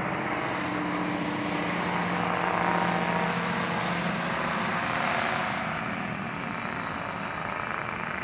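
An engine running steadily, a continuous hum that eases off slightly near the end.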